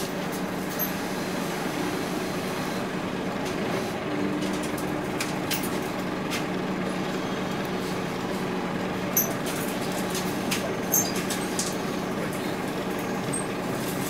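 Scania OmniLink bus engine idling steadily, heard from inside the saloon, with a few light clicks in the second half.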